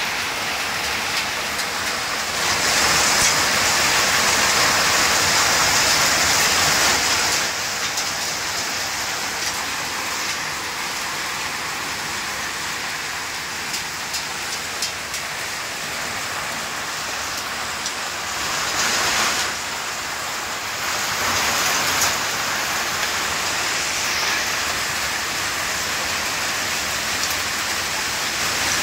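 Heavy unseasonal downpour with hail, a steady rush of rain that swells louder for several seconds near the start and twice more later on, with a few sharp ticks of hits.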